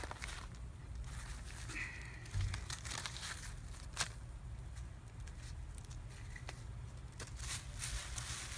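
Newspaper being torn and crumpled by hand, an irregular crackling rustle with sharp clicks, and a dull thump about two and a half seconds in.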